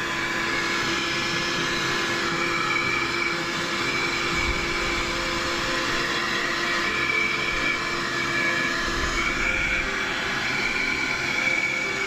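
Piranha PVC-4005 12-volt, 60-watt handheld car vacuum running steadily with its narrow crevice nozzle fitted: a constant motor hum under the rush of sucked air.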